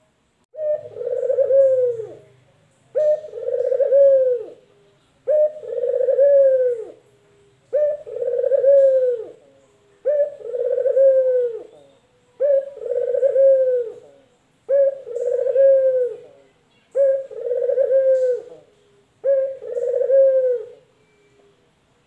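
Male ringneck dove (puter) cooing in a steady series: nine long coos, each a short opening note followed by a longer drawn-out note, repeated every couple of seconds.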